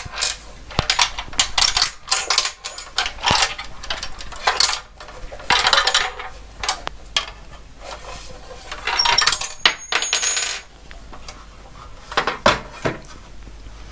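A loose drill bit rattling and clinking inside the metal chassis of a DEC RX02 floppy drive as the drive is tilted and shaken to work it out, with irregular clicks, several bursts of rattling and a brief metallic ring a little over nine seconds in. The stray drill bit is the cause of the rattle the drive had been making.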